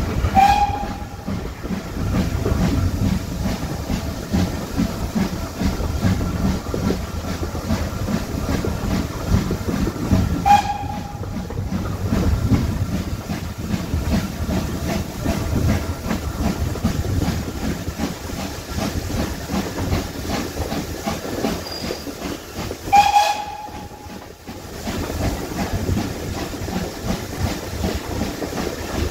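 GWR Castle-class steam locomotive Pendennis Castle working a train, heard from the carriages behind it: a steady exhaust and running noise with the clatter of the rail joints. Three short whistle notes sound, one about half a second in, one about ten seconds in and one near twenty-three seconds.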